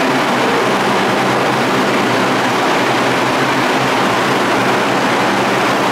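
R142 subway train standing at the platform with its onboard equipment running: a steady rushing hum with a low drone underneath, no change throughout.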